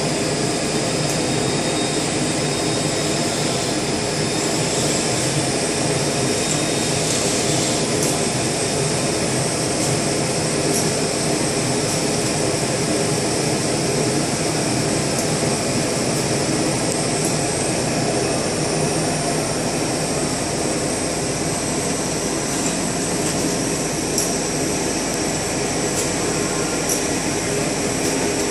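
Steady, even running noise of industrial machinery, with a few faint sharp clicks scattered through it.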